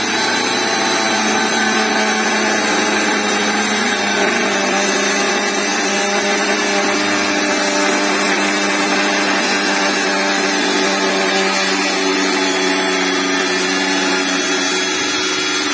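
Hengdian cordless angle grinder running at a steady pitch while its cut-off disc cuts through thin steel angle iron.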